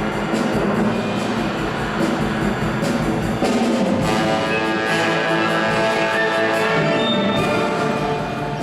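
Youth orchestra playing: a busy rhythmic passage, then full held chords from about three and a half seconds in.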